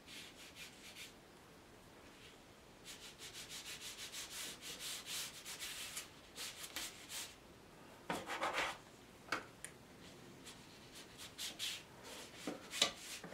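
Paintbrush scratching and dabbing on rough watercolour paper: runs of quick short strokes, several a second, with a louder rustle about eight seconds in and a sharp tap near the end.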